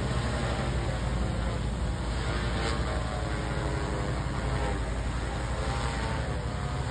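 Steady hum of a large multirotor drone's propellers as it hovers, its pitch wavering slightly as the motors adjust.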